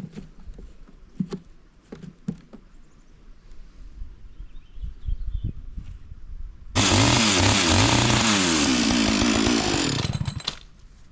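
A few light knocks, then about seven seconds in a chainsaw starts up loudly and revs up and down several times for about three seconds before dying away.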